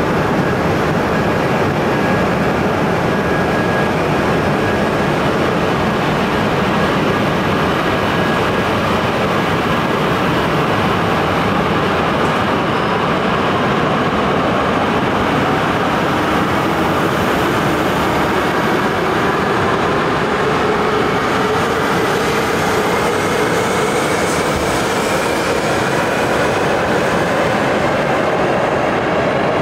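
A coupled JR East E6-series and E5-series Shinkansen, 17 cars with 13 powered, pulling away from a station platform and accelerating. Its passing cars make a steady rumble, and from about two-thirds of the way through a whine rises steadily in pitch as the train gathers speed.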